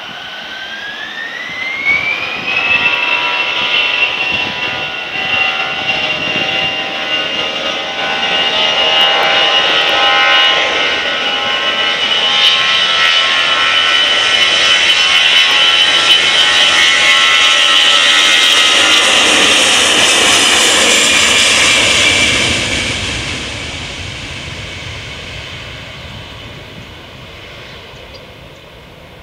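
Airbus A320-214's CFM56 turbofan engines at take-off power: a rising whine as they spool up over the first few seconds, then a steady jet roar with a high whine through the take-off roll and lift-off. It is loudest about two-thirds of the way through, then fades as the aircraft climbs away.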